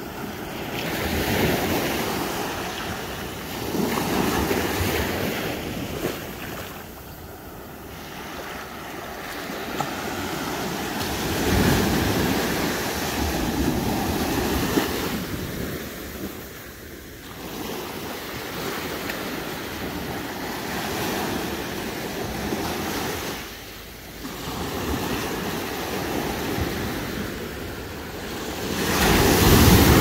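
Small ocean waves breaking and washing up onto a sandy beach, a rushing surf that swells and fades every few seconds. The biggest break comes near the end.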